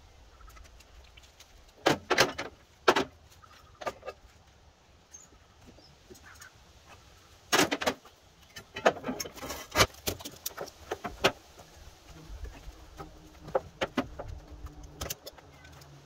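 Ratchet tie-down straps being released and unhooked from a car trailer: several clusters of sharp metal clicks, clacks and rattles, the busiest stretch in the middle.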